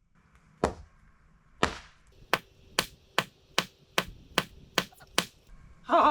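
Hammer blows on wood: two spaced strikes, then a quick even run of about eight more, driving a framing member into place.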